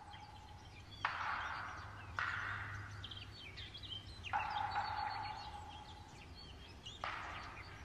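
Frozen trees cracking in hard frost: four sudden sharp cracks, about one, two, four and a half and seven seconds in, each trailing off in a ringing echo through the forest. The bark is bursting and splitting from a sudden drop in temperature.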